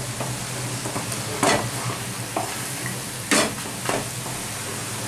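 A spatula stirring and scraping a moist ash gourd, chickpea and grated coconut curry around a nonstick kadai over the flame, with a steady sizzle underneath. A few sharper scrapes against the pan stand out.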